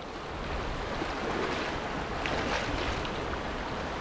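Rushing river water running over shallow rapids, a steady noise that fades in at the start, with wind buffeting the microphone.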